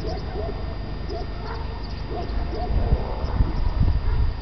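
Wind rumbling on the microphone, growing stronger over the last second or so, with a few faint short calls in the background.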